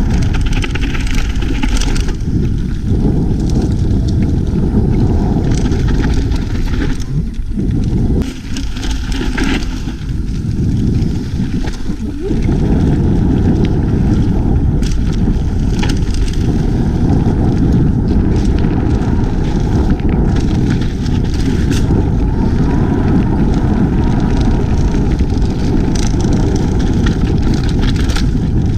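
Heavy wind buffeting on a GoPro Hero 5's built-in microphone while riding a mountain bike downhill fast, a loud low rumble that drops briefly a few times. Scattered clicks and knocks from the bike running over the rough dirt trail come through it.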